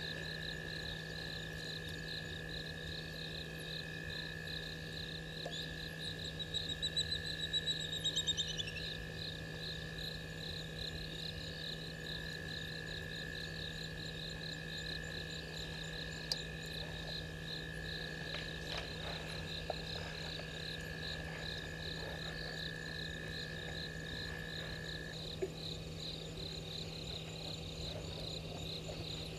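Night chorus of insects and frogs: a steady pulsing trill and a continuous high note, which stops near the end, over a low steady hum. A short descending run of calls rises above it about seven seconds in.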